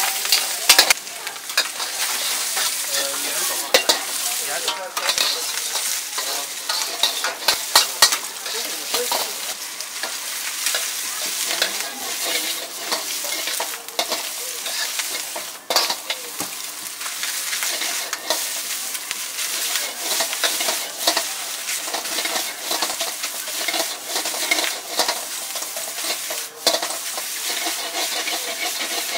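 Stir-frying in a wok over a strong gas flame: food sizzles steadily while a metal ladle scrapes and clanks against the wok in quick, irregular strokes as the vegetables and then egg fried rice are tossed.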